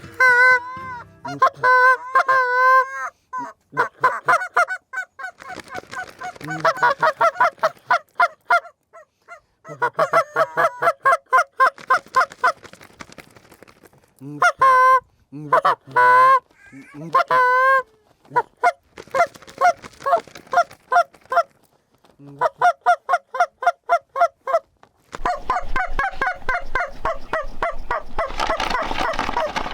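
Snow geese calling: rapid high-pitched yelping honks in repeated bursts with short breaks, thickening near the end into a dense chorus of many birds calling at once.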